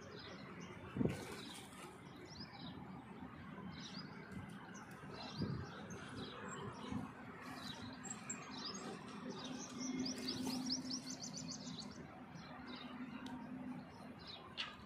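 Wild birds chirping on and off, with a quick run of repeated notes about ten seconds in. A faint low hum sits underneath through the second half, and a brief thump sounds about a second in.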